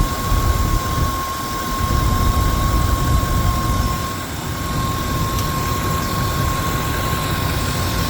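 Ford 5.4-litre Triton V8 in a 2000 F250 idling steadily with a freshly replaced water pump, a steady whine held over the low engine rumble.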